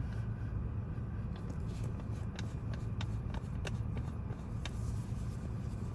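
Car engine idling, heard from inside the cabin as a steady low hum, with a few faint clicks over it.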